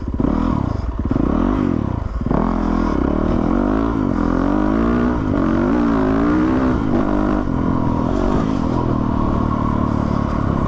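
Yamaha WR450 dirt bike's single-cylinder four-stroke engine under way off-road, its pitch rising and falling several times with the throttle, then running steadier near the end.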